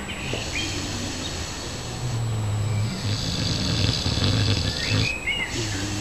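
Pot-bellied pigs snoring in their sleep: a low, rasping snore about every one and a half to two seconds, each followed by a breathy out-breath. Birds chirp briefly near the start and again about five seconds in.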